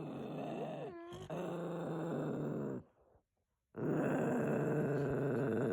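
Dachshund growling in three long, low growls, with a short silence before the last one; the dog is guarding something it holds from its owner.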